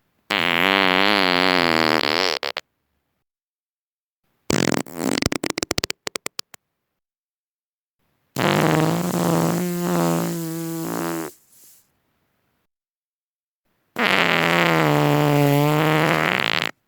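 Four human farts one after another. The first is pitched and wavering, about two seconds long. The second is a sputtering string of quick pops that slow toward the end. A longer pitched one of about three seconds follows, and a last pitched, wavering one comes near the end.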